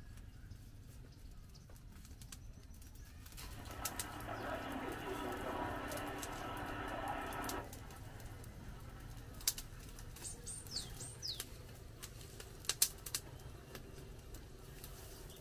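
Wood campfire crackling with a few sharp pops, a steady droning sound with many overtones lasting about four seconds a few seconds in, and a bird's quick run of high, downward-gliding chirps about ten seconds in.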